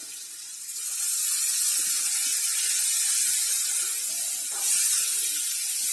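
Water splashed into a hot kadai of frying potatoes breaks into a loud sizzling hiss of steam about a second in, and the hiss keeps on. The two spoonfuls of water are added to steam the potatoes through.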